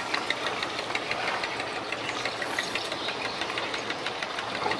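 Komatsu turbo diesel engine of a large wooden rice cargo boat running steadily underway, a rapid, even clatter of engine firing.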